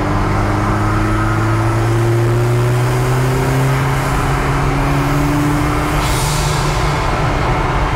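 Rear-mounted 1.9-litre Volvo 16-valve turbo four-cylinder engine pulling under load, its pitch rising slowly and steadily for about six seconds. Around six seconds in, a hissing rush comes in as the rising tone stops.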